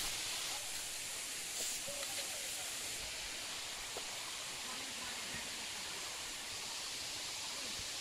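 Steady hiss of falling water from a waterfall, with a few faint distant voices.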